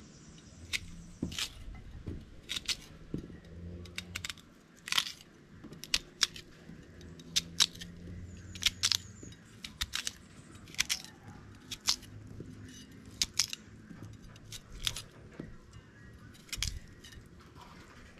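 A run of sharp, irregular clicks and knocks, about one or two a second, over a faint low hum.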